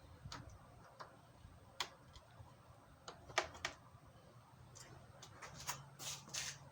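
Faint, irregular light clicks and taps, about a dozen scattered over several seconds, some in quick pairs, over a faint low steady hum.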